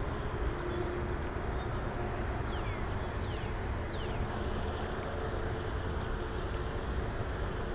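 Steady wind rumble and hiss on the microphone outdoors, with a few faint, high, falling chirps about two and a half to four seconds in.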